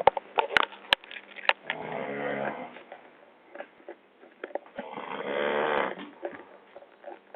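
A man snoring in deep sleep: two long snores, each lasting about a second, roughly three seconds apart. A few sharp clicks come in the first second and a half.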